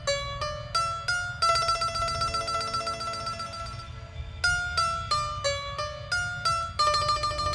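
Background music: a plucked string instrument playing a melody in quick, sharply struck notes, each phrase ending on a long held note, over a steady low hum.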